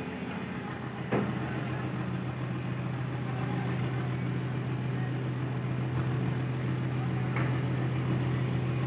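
Fishing boat's engine running with a steady low hum, growing a little louder after a sharp knock about a second in; two faint ticks come later.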